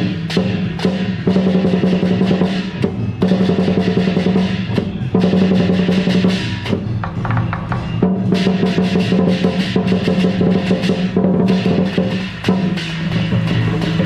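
Lion-dance percussion: a large drum beaten in fast rolls, with clashing, ringing metal percussion and a steady ringing tone underneath. The rhythm breaks off and restarts several times.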